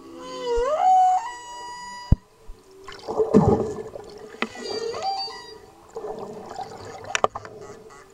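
Humpback whale song heard underwater: rising whooping upsweeps about half a second in, a loud low groan around three seconds in, then more pitched cries. Two sharp clicks, about two and seven seconds in, cut through the song.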